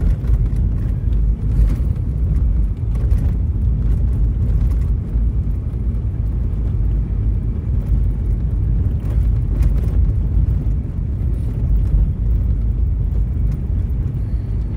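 Inside a vehicle driving on a snow-covered road: a steady low rumble of engine and tyre noise, with a few faint clicks.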